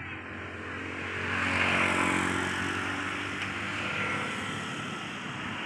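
A motor vehicle's engine passing by: a steady hum that swells to its loudest about two seconds in and then slowly fades.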